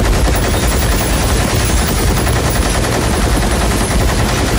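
A large mounted machine gun firing continuously, a rapid unbroken stream of shots with a heavy low end.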